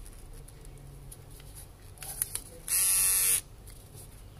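Philips QG3322 cordless multigroom trimmer with a comb guide fitted, switched on for under a second about two-thirds of the way in: a steady electric buzz that starts and stops sharply. A couple of light clicks come just before it.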